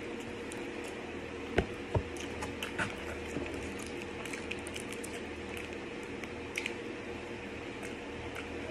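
Hands pulling apart fried chicken tenders over a takeout container: soft squishy, crackly handling sounds with scattered small clicks, and two sharper knocks about a second and a half and two seconds in, over a steady low hum.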